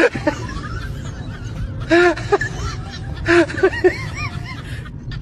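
A cat meowing in short calls that rise and fall in pitch: one about two seconds in, then a quick run of three or four about a second later.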